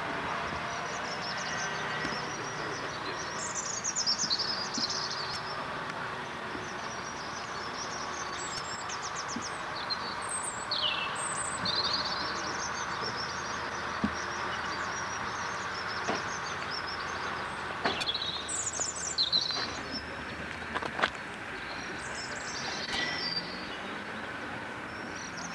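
Small birds chirping repeatedly over a steady background hum, with a few sharp knocks in the second half.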